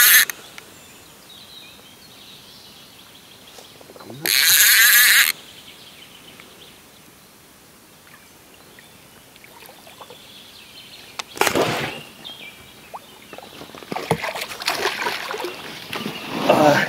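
Spinning fishing reel's drag buzzing in two short bursts of about a second each, right at the start and about four seconds in, as a hooked small catfish pulls line. Splashing comes near the end as the fish thrashes at the surface.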